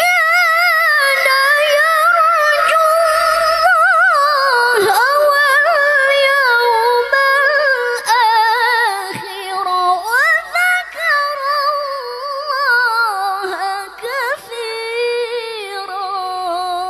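A woman reciting the Qur'an in the melodic tilawah style into a handheld microphone: long held notes decorated with rapid trills, sweeping pitch rises and falls, and short breaks for breath between phrases.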